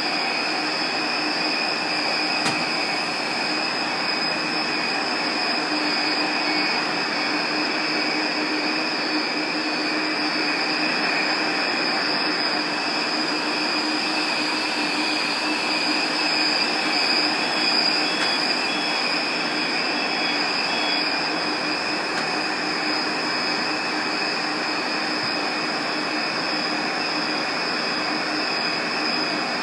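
Ten racks of HP EVA (Enterprise Virtual Array) storage-array alarm buzzers screaming together in a continuous high-pitched tone over the steady rush of equipment cooling fans. The alarms signal that one of the two redundant power feeds has been cut.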